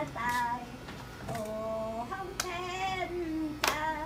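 An elderly woman singing an old folk song unaccompanied, in long held notes that slide between pitches. A few sharp taps sound over the singing, the loudest near the end.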